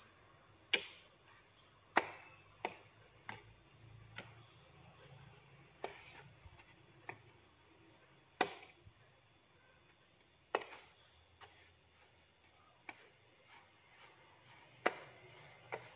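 Metal fork tapping and scraping on a plate while a fish finger is turned in breadcrumbs: about a dozen faint, irregular clicks a second or so apart.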